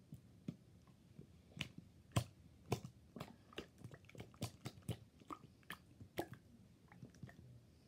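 Pink and yellow slime squished and worked in the hand, giving faint, irregular wet pops and clicks, about two a second, that stop near the end.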